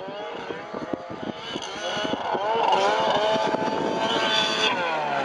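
Snowmobile engine revving as the sled comes closer. Its pitch and loudness climb from about two seconds in, then hold high and steady.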